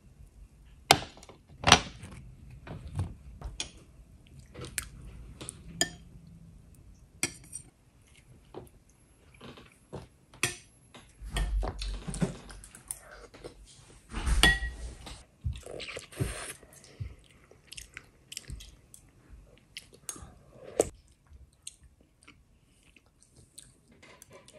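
Metal spoons clinking irregularly against ceramic soup bowls while people eat soup, with chewing between the clinks. A couple of louder dull thumps come about halfway through.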